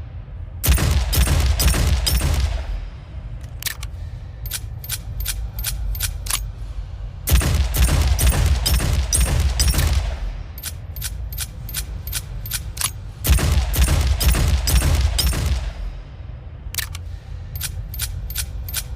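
Revolver sound effect: a quick string of about six gunshots with echoing tails, then a run of lighter metallic clicks from the gun's mechanism. The cycle repeats three times.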